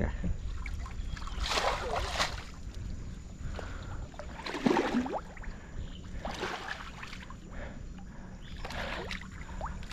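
Feet wading through shallow, muddy river water, sloshing every second or so, over a low steady rumble of moving water and wind.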